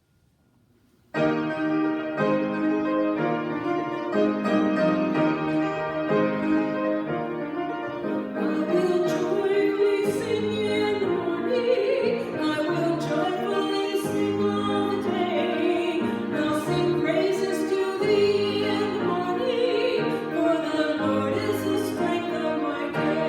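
Music begins about a second in with piano chords. About eight seconds in, a voice starts singing with a wavering, operatic-style tone over the piano.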